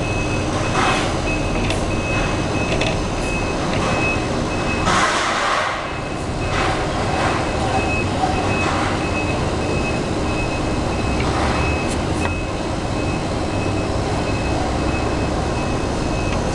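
Dumpster-collecting truck running with its reversing alarm beeping over and over, and a short burst of hiss about five seconds in.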